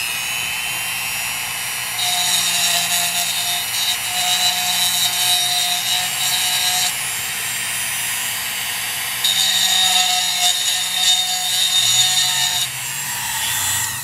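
Dremel rotary tool running at a steady high whine, grinding the small nubs off a toy car's wheel so it will fit. The grinding gets louder and rougher twice, about two seconds in for several seconds and again near the ninth second, before the motor winds down near the end.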